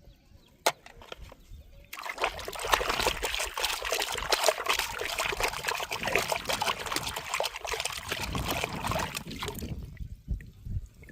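Water trickling and splashing, with many fine crackles, starting about two seconds in and stopping shortly before the end; a single click comes just before it.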